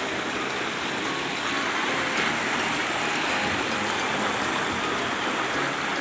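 Steady rushing of a rocky stream, water running over stones.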